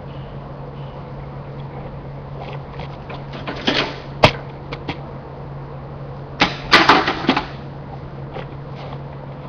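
Electric arc welding in short tacks: brief bursts of arc crackle, one a little under four seconds in and a longer one of about a second near seven seconds in, with a sharp click between them, over a steady low hum.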